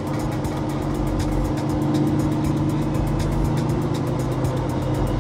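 Semi-truck's diesel engine running steadily at highway cruise, a continuous low drone with road noise, heard from inside the cab.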